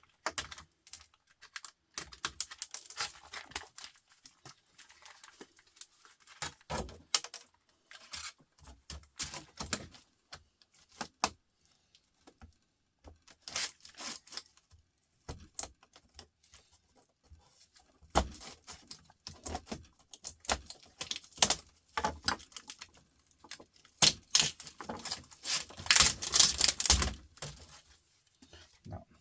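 Laptop parts being prised apart and handled by hand: irregular plastic and metal clicks, snaps and rattles, with a denser, louder burst of clatter near the end.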